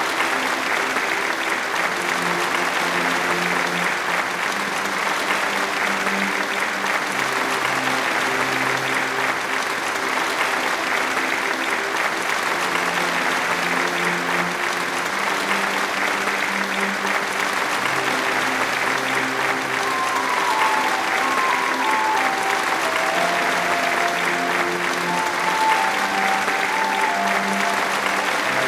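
Audience applauding over slow background music with sustained low notes. A higher melody enters about two-thirds of the way through and steps downward.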